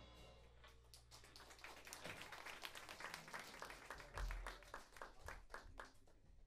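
Faint, scattered clapping from a small audience, starting about a second in and dying away near the end. There is a low thump about four seconds in.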